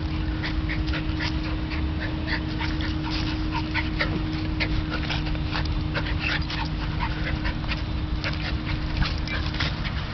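A Scottish terrier and a Welsh terrier play-fighting, making many short dog noises in quick succession throughout.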